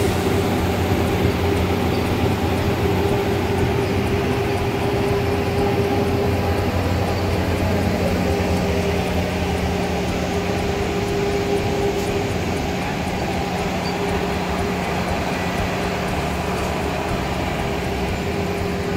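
A steady mechanical hum with a constant low drone, like an engine or motor running, over street noise.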